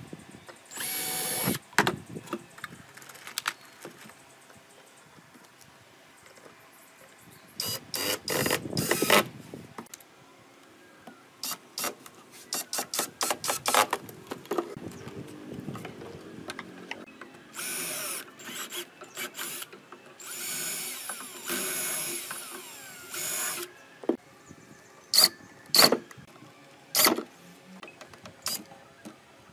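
Cordless impact driver running in repeated short bursts a few seconds apart, driving screws into pine boards to fit the lid's hinges.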